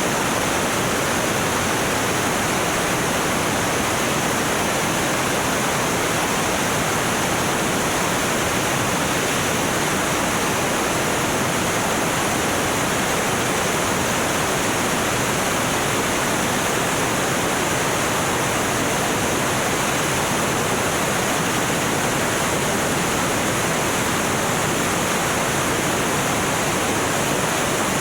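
Steady rushing noise of a light aircraft's engine and airflow, heard from inside the cockpit.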